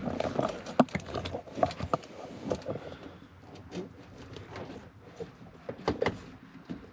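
Scattered clicks, taps and rustles of hands working on a car's pedal and its cable under the dashboard, with a sharp knock a little under a second in and a few more around six seconds in.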